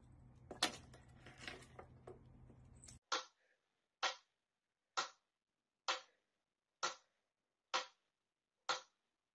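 Pyramid-shaped mechanical metronome ticking steadily, a little under one tick a second, starting about three seconds in. Before that, faint room noise with a few light clicks.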